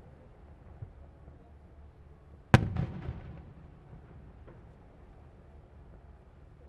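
Fireworks going off: a low rumble, then one sharp, loud burst about two and a half seconds in, followed by a rolling echo and crackle. Another burst comes right at the end.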